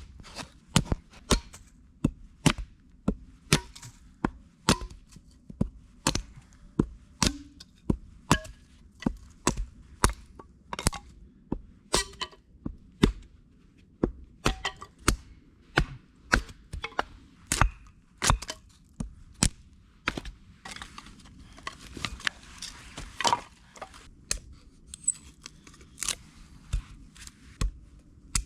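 Wood being chopped for a campfire: a long run of sharp, separate chopping strikes, roughly one to two a second at an uneven pace, with a few seconds of rustling hiss after about twenty seconds.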